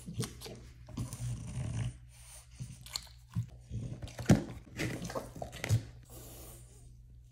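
French bulldog making low snorting dog sounds over the first couple of seconds, then sharp clicks and rustling as a plastic wipes canister lid is snapped open and a wipe is pulled out, the loudest click about four seconds in.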